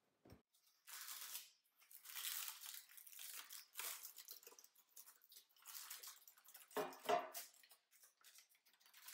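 Parchment paper rustling and crinkling as it is gathered and pulled to lift a baked loaf out of a metal loaf pan, with a soft thud just after the start and a louder dull knock about seven seconds in.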